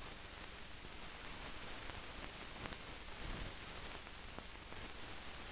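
Faint steady hiss with a few soft clicks: the background noise of an old 16mm film soundtrack during a blank stretch between scenes.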